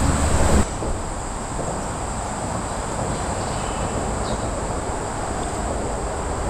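Steady hiss of traffic on a nearby road, with a thin, high, unbroken insect trill over it. Just over half a second in, the level drops abruptly.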